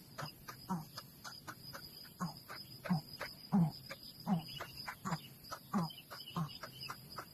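Short animal calls repeating about once every two-thirds of a second, over a steady high-pitched insect buzz.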